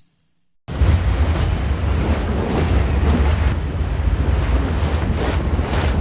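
River rapids rushing: a loud, steady wash of water with a heavy low rumble, starting abruptly under a second in. Before it, a brief high tone fades out.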